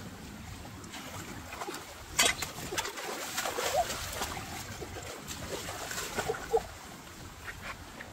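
Hands splashing and sloshing in shallow muddy water while groping for fish by hand. There is one sharp splash about two seconds in, then a run of smaller splashes, and another sharp one later on.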